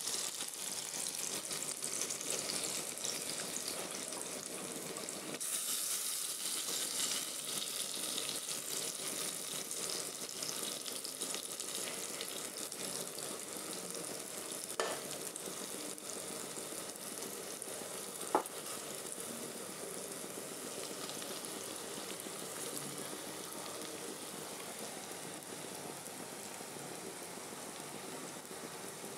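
Red lentil fritters (masoor dal bora) sizzling steadily as they deep-fry in hot oil in a kadai, with two brief clinks about halfway through.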